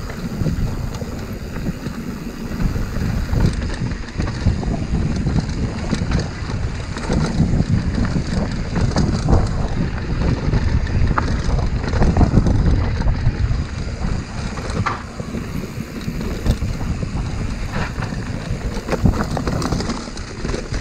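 Wind buffeting the microphone of a camera on a mountain bike riding a dirt trail, over the rumble of the tyres on the ground and scattered knocks and rattles as the bike goes over bumps.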